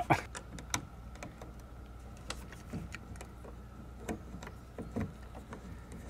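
Hand screwdriver driving a screw through the door-edge faceplate of an RV entry door lock: scattered small clicks and scrapes of metal on metal, with a few sharper ticks.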